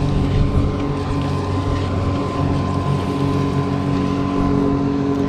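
Boat's outboard motor running steadily at a constant low speed, its hum holding an even pitch.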